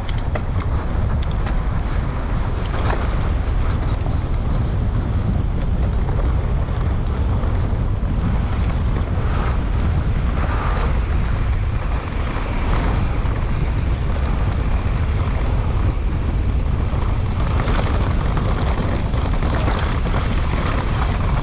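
Wind rushing over an on-board camera microphone as a mountain bike descends a trail at speed, with scattered knocks and rattles from the bike over rough ground.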